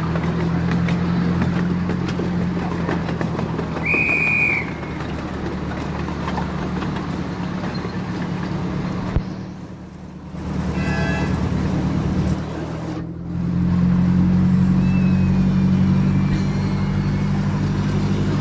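Miniature ride-on railway train running along the track: a steady engine drone with wheel and rail noise. A short high tone sounds about four seconds in, and the drone drops away briefly around ten seconds in and again near thirteen.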